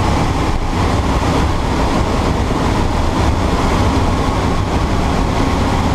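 Steady drone of a light aircraft's engine and propeller with rushing wind, heard from inside the cabin in flight.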